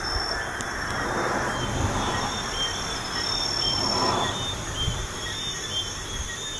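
Crickets chirping steadily over the rush of highway traffic. Passing vehicles swell louder about a second in and again around four seconds in.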